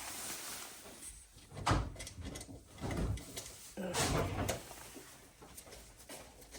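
Handling noises as screws and washers are fitted to a circuit board's mounting plate: a few soft knocks and scrapes, the clearest about two, three and four seconds in.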